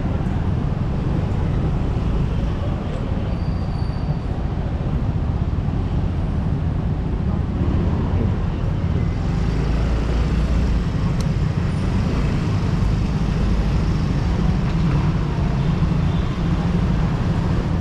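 Yamaha Gravis scooter engine running steadily while riding, with road and wind noise.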